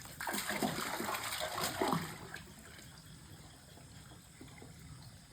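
Water splashing and sloshing for about two seconds, then dying down.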